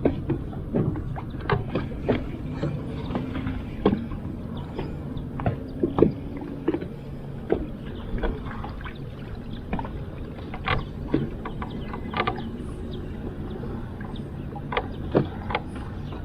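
Small fishing boat sitting on the water: a low steady hum with many small irregular knocks and clicks against the hull and gear.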